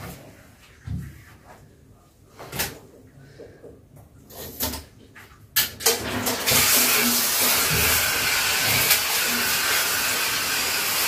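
A few light knocks and clatters of cleaning in a bathtub. Then, about six seconds in, a handheld shower head is turned on and sprays water steadily into the tub to rinse it, a loud even hiss.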